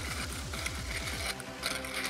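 Hand-turned 3D-printed plastic radial engine model, its pistons and connecting rods clicking and rattling in quick succession as the hub spins. Electronic music with a repeating falling bass plays under it and stops a little over a second in.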